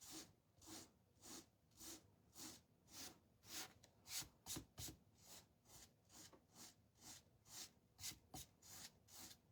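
Fine-grit sandpaper rubbed back and forth by hand over a Mod Podge-coated wooden cutting board, a faint scratchy stroke about twice a second, sanding off the glossy sealer layer.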